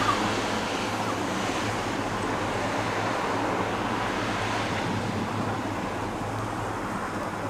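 Wind rushing over the microphone and road traffic noise, an even rushing haze with a steady low hum beneath it.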